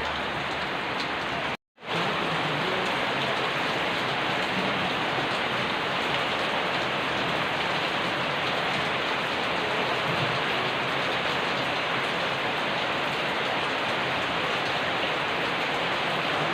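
Steady rain falling, an even hiss of many drops with no single sound standing out. It cuts out completely for a fraction of a second about a second and a half in, then carries on as before.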